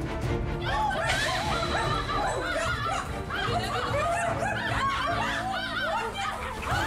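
Dogs barking and yapping in a rapid, overlapping flurry of short calls, with background music under them.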